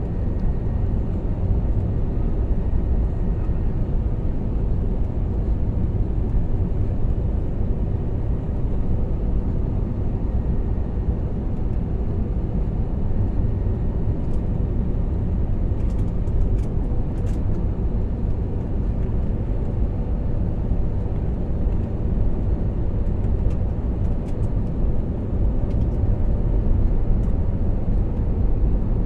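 Steady low rumble of an Airbus A321neo's engines and airflow heard inside the passenger cabin in flight, with a few faint ticks about two-thirds of the way in.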